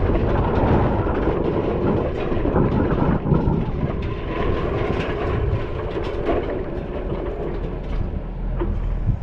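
A large farm tractor's diesel engine runs as it tows an air drill and air cart over a dirt yard. The steel drill frame and its shanks rattle and clank over bumps the whole time.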